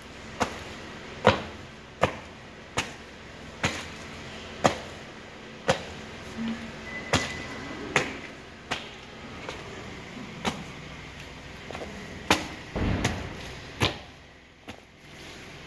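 Flat-soled leather boots stamping on raw chicken pieces on a concrete floor: a steady run of sharp slapping footfalls, about one a second, with a heavier low thud near the end.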